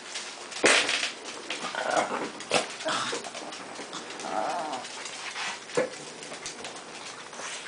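Small dogs whimpering, with a few short sharp yips scattered through.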